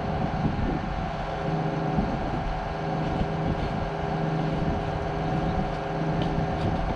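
Wheel loader's diesel engine running at a steady speed while the machine travels on the road, a constant low drone with a steady hum above it.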